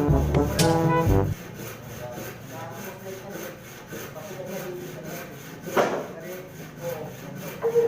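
A saw cutting through wood in steady, repeated back-and-forth strokes, after music that stops about a second and a half in.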